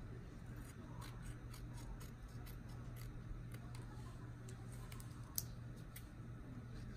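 Small scissors snipping around a printed sublimation transfer paper in short, irregular cuts, with one sharper snip about five seconds in. A low steady hum runs underneath.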